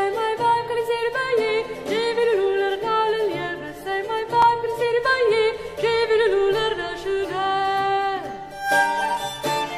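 Early-music consort performing a French song: a solo voice sings the melody over plucked lutes and a bowed viol. The voice holds a long note that falls away a little after eight seconds, and the instruments then carry on alone with plucked notes.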